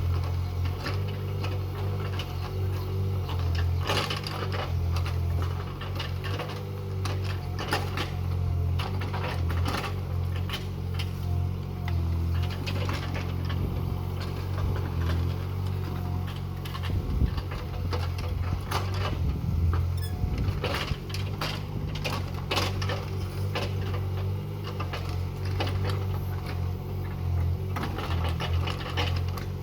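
Excavator engine running steadily under a low drone, with scattered clanks and knocks from the digging.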